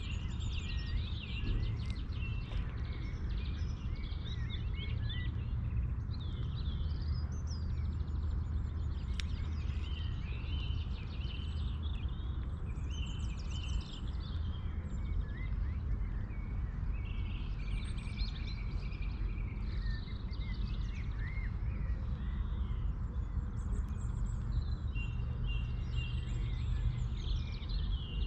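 Several songbirds chirping and warbling without a break, over a steady low rumble.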